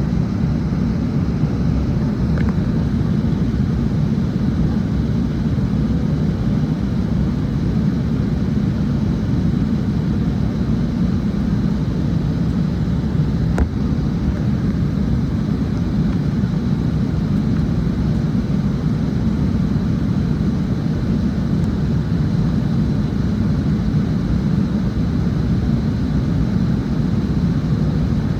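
Steady drone of a passenger airplane in flight heard from inside the cabin: engine and airflow noise, a deep even rumble that does not change.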